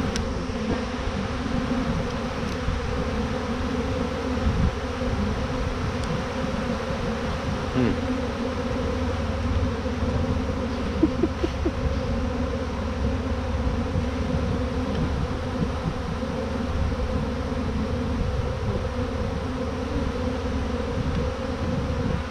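Steady, dense buzzing of a honeybee swarm of thousands of bees in flight close around the microphone.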